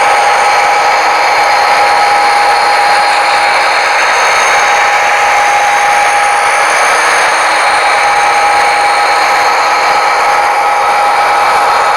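Model train running on the layout: a steady high electric motor whine over the hiss of wheels on track.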